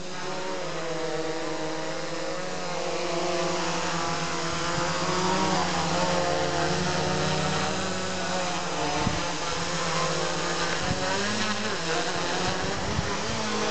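Small quadcopter's electric motors and propellers whining, the pitch wavering up and down as the throttle changes, growing louder over the first few seconds as it comes close. A few low thumps come near the end.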